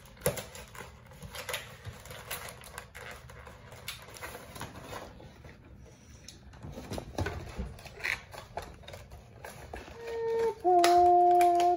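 Plastic toy packaging crinkling and clicking in irregular light taps as action figures and their accessories are pulled out and handled. About ten seconds in, loud held tones start, two notes at once that shift pitch.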